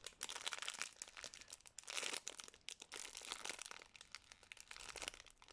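Plastic packaging crinkling in quick, irregular crackles as squishy toys in their bags are handled.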